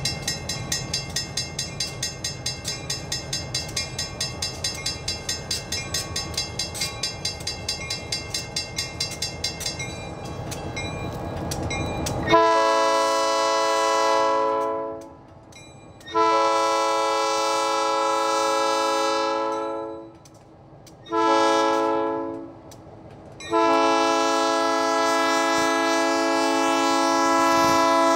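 A diesel locomotive's bell rings steadily, about four strokes a second. Then its air horn sounds the grade-crossing signal: two long blasts, a short one, and a long one that is still sounding at the end.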